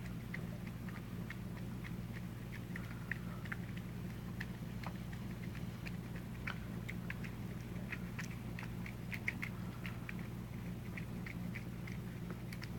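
Two cats eating wet food from ceramic bowls: quick, irregular wet smacking and chewing clicks, over a steady low hum.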